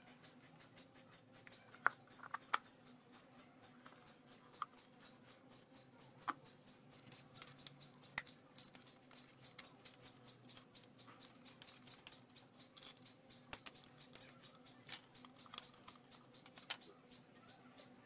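Scattered light clicks and taps, with a few sharper knocks about two seconds in, around the middle and near the end, as the metal parts of a ceiling fan motor (stator, rotor housing and cover) are handled and fitted together. A faint steady low hum lies underneath.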